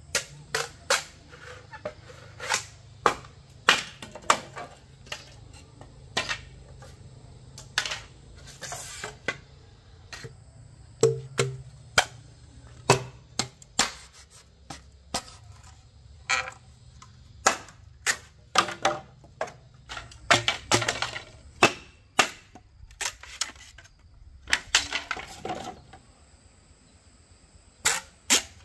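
Irregular sharp knocks and chops, about one or two a second, from bamboo being cut and worked by hand, over a steady high insect chirring.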